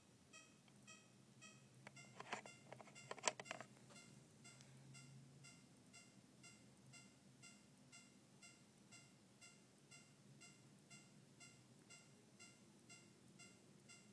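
Japanese-style railroad-crossing alarm bell tone generated by an ATtiny10 microcontroller board, faint, repeating its ding at an even pace. About two to four seconds in, a short burst of loud clattering knocks.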